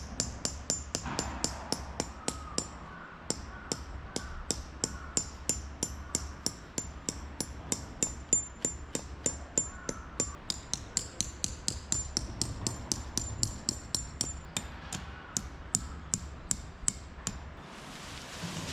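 Tent pegs being driven in with a hammer: a long, steady run of sharp, ringing metal strikes, about three a second, that stops near the end.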